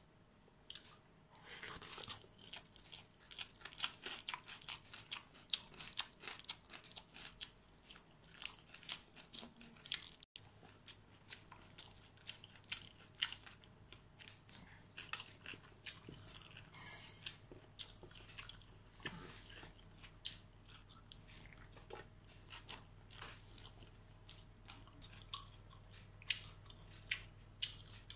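Close-up chewing and lip smacks of someone eating rice and chicken curry by hand: a quick, irregular run of small clicks and smacks.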